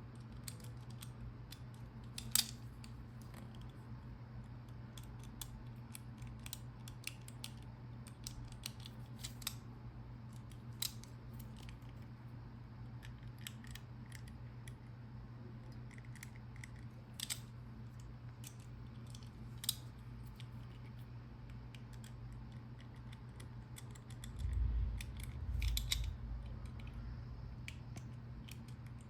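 Master combination padlock being worked by hand, its dial turned and shackle tensioned, giving scattered small metallic clicks over a steady low hum. A few low bumps come near the end.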